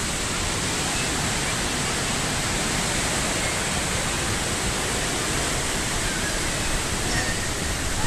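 River water rushing over rocky rapids: a steady, unbroken hiss.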